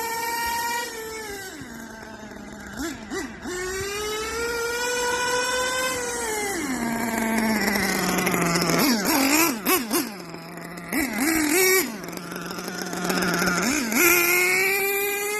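Small nitro RC monster truck engine running at high, whining revs, then dropping to a low idle with quick throttle blips, revving up again and back, several times over.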